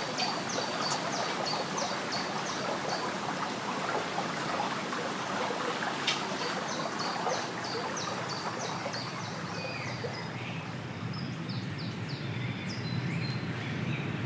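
Water running over stones in a steady rushing wash, with a small bird singing two runs of rapid, short, high notes: one in the first few seconds and another just after the middle.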